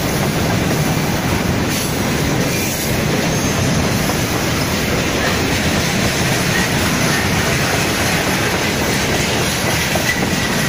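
A freight train of rail tank cars passing close by at speed: a steady, loud rolling noise of steel wheels on the rails.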